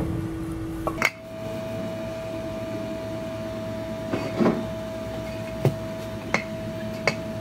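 A few scattered sharp knocks and clinks from wooden boards and concrete cinder blocks being shifted under a car body to lower it. A steady hum runs underneath and jumps up in pitch about a second in.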